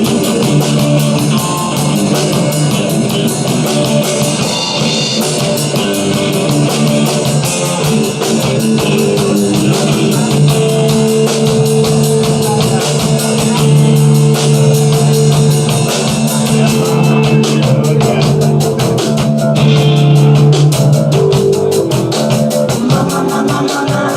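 Rock music playing steadily, with a drum kit keeping a busy beat under guitar.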